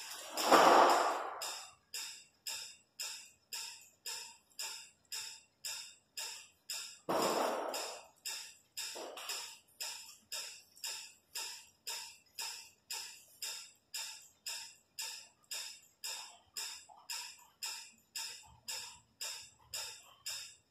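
Background music with a steady pulsing beat, about two short pulses a second. Twice, about half a second in and again about seven seconds in, a louder hiss-like sound rises over it.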